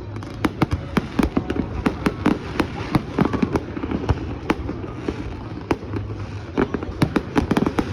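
Fireworks display going off: a rapid, irregular run of sharp bangs and crackles, several a second, over a constant low rumble.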